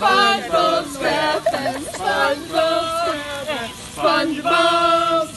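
People singing, with a long held note near the end.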